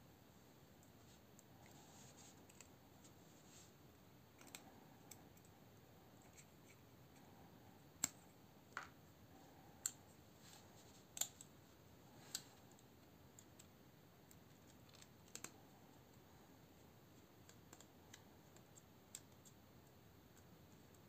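Faint small clicks and ticks of folding-knife parts and a Torx screwdriver being handled: metal handle pieces and screws knocking lightly together. A handful of sharper clicks come in a cluster near the middle, with fainter ones scattered around them.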